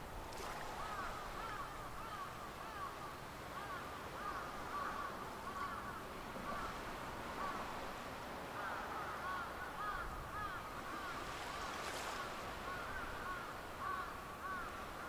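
A flock of birds calling: many short, overlapping calls that rise and fall in pitch, over a steady low rumble.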